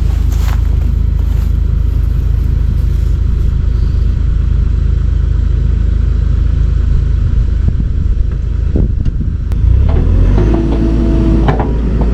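A heavy engine running steadily with a deep rumble. About ten seconds in the sound changes, with a steady whine and some clatter over the engine.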